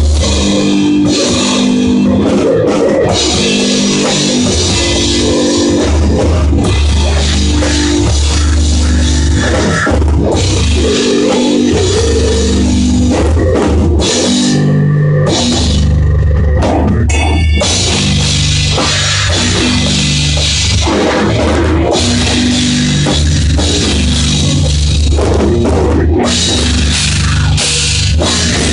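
A band playing loud heavy-metal rock: electric guitar riffs on low notes over a drum kit with cymbals.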